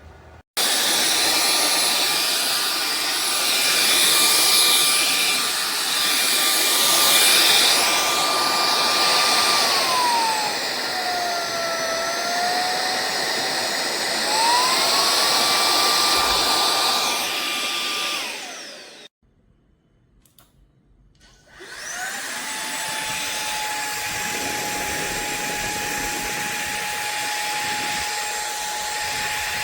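SunSare cordless stick vacuum running with a steady high whine over a hiss of rushing air. About ten seconds in, the whine sinks in pitch for several seconds, then climbs back. It switches off at about eighteen seconds, its whine falling away, then starts again after a short pause and runs on at a lower, steady pitch.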